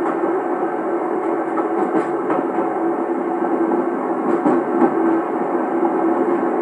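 Passenger train running, recorded on cassette from the end deck of the coach right behind a JNR DE10 diesel-hydraulic locomotive: a steady rolling rumble and drone from the locomotive and wheels, with a few irregular clacks.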